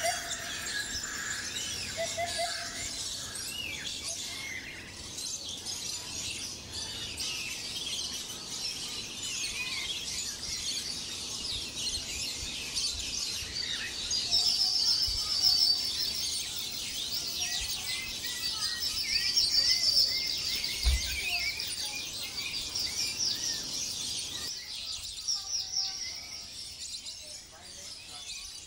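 Birds calling in a dense chorus of high chirps and short trills, with two louder runs of rapid, buzzy trilled calls about halfway through.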